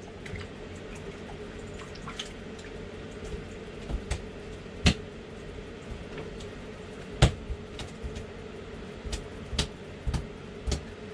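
Water splashing and dripping at an ice-fishing hole as a small fish is brought up, with scattered sharp clicks and knocks over a steady hum.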